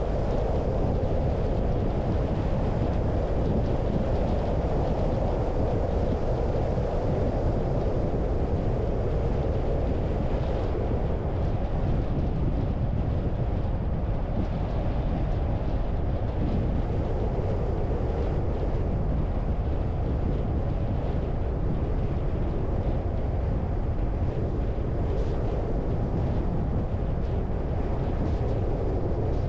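Steady driving noise of a car moving at an even speed: tyre, engine and wind noise blended into a constant low rumble that does not change.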